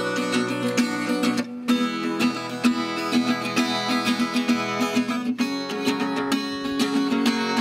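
Gypsy-jazz acoustic guitar of the Selmer-Maccaferri type, small oval sound hole, played with quick rhythmic strummed and picked strokes, with a short break about a second and a half in.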